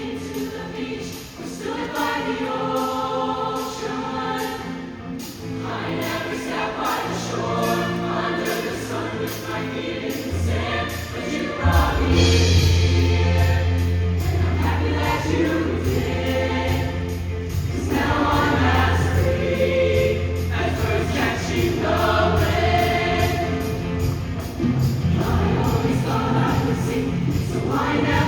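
Show choir singing in full voice over a band accompaniment with a deep bass line and a steady beat, growing a little louder about twelve seconds in.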